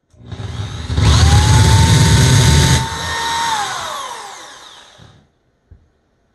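Electric drill revving up and boring a hole, with a heavy grinding rumble under the motor whine. About three seconds in, the load drops off and the motor winds down to a stop.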